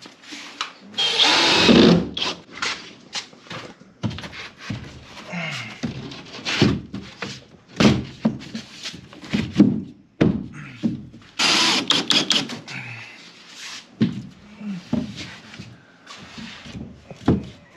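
Sheets of drywall being handled and pushed into place: a string of knocks and thuds, with two longer scraping noises, about a second in and again around eleven seconds in.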